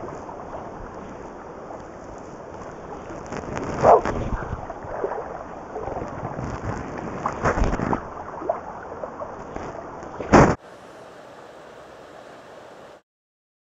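Steady rush of river water and wind on the microphone while a salmon is played from a boat, broken by three loud short sounds about four, seven and a half and ten seconds in. A little later it gives way to a quieter, even hiss, which then stops.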